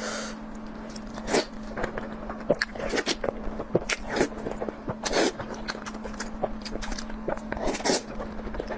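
Close-miked eating: irregular crunches, smacks and wet clicks of biting and chewing, over a faint steady hum.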